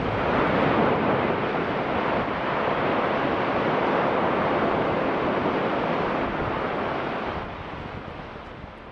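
Steady rushing roar of blasted rock and debris cascading down a quarry face after a large quarry blast, fading out over the last couple of seconds.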